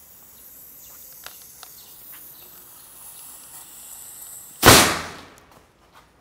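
Dry ice in water inside a capped 5-litre plastic bottle, fizzing with a faint high hiss and a few small clicks as the cap is screwed on. About four and a half seconds in the pressurised bottle goes off with a single loud bang that trails away in about half a second.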